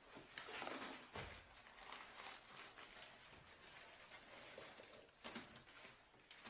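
Near silence: room tone with a few faint rustles and knocks, the clearest near the start and about five seconds in.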